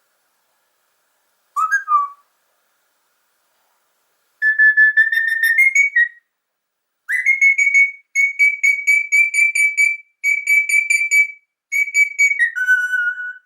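Police whistle blown in a series of trilling blasts: one short blast, then five longer ones, the last ending on a lower pitch.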